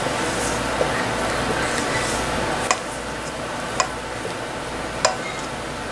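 A utensil folding beaten egg whites into cake batter in a mixing bowl, the fold marked by three sharp clicks against the bowl about a second apart in the second half, over a steady background hiss.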